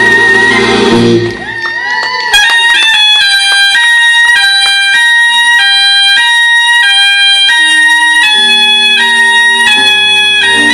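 Soprano saxophone playing alone in its high register, rocking back and forth between two high notes in a repeated figure after the band cuts out. Near the end the band's bass and keyboards come back in underneath it.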